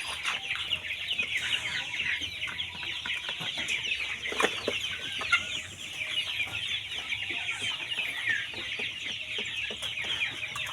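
A flock of chickens calling all at once: a dense, continuous mass of overlapping high chirps and clucks.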